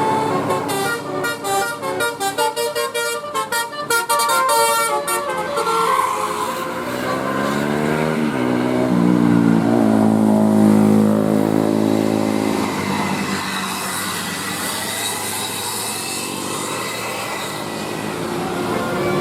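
Indonesian bus 'telolet' multi-tone horn playing a fast melody of short stepped notes for about five seconds, then longer held tones that bend in pitch. After that, steady road and traffic noise.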